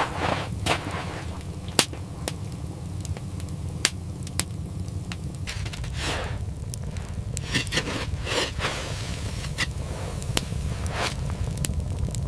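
Wood fire crackling: scattered sharp pops and clicks over a steady low rumble, with a few softer swishing crunches about halfway through and again later.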